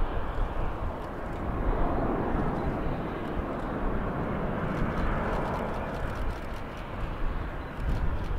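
Boeing 787-9 airliner landing: a steady jet engine noise over a low rumble, swelling about two seconds in and again near the middle as the aircraft touches down and rolls out.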